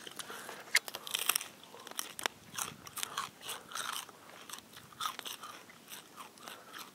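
Raw celery stalks being bitten and chewed: a run of irregular crisp crunches.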